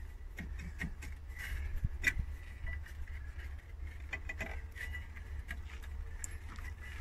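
Faint scattered clicks and scrapes of a rusted brake rotor being wiggled by hand on a hub it has rusted onto, over a steady low background hum.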